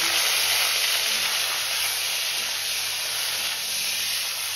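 Hilsa fish head frying in hot oil in a steel wok: a steady, even sizzle that eases slightly toward the end.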